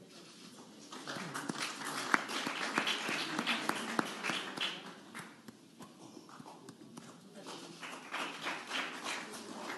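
Many camera shutters clicking in rapid, overlapping bursts: a dense flurry about a second in that eases off around the middle, then picks up again near the end.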